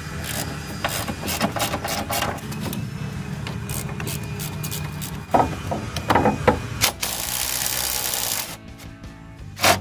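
Hand ratchet clicking on engine bay bolts, then a few knocks of tools, and near the end an Earthquake XT 20V cordless impact wrench runs for about a second and a half on an engine mount bolt. Background music plays underneath.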